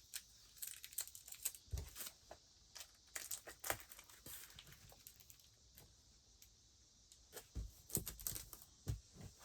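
Faint, irregular crinkles and small clicks of hands handling sticky tape and a plastic recipe sleeve, with tape being torn off and pressed on, quieter for a stretch in the middle.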